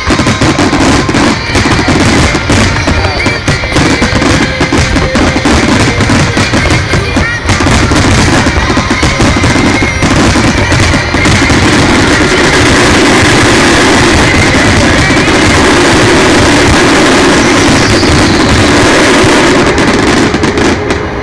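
Fireworks display firing fast, with shells bursting and crackling over loud accompanying music. The reports come thick and rapid at first, then about halfway through they merge into a dense, continuous crackle for several seconds.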